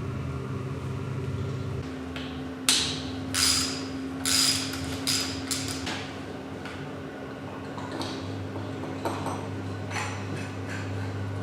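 Metal knocks and scrapes on motorcycle engine parts: about five sharp, ringing hits in the first half, then lighter clicks, over a steady low hum.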